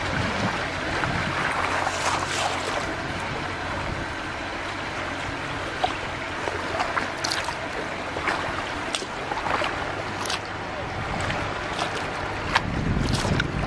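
Water rippling and splashing around a moving kayak, with small sharp splashes every second or two, over a low rumble of wind on the microphone.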